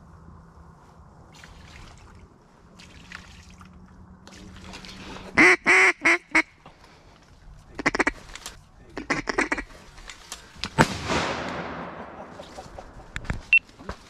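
Duck quacks in loud runs, a cluster about five seconds in and a few more a couple of seconds later, then a single shotgun shot near the end that echoes and fades over a second or so.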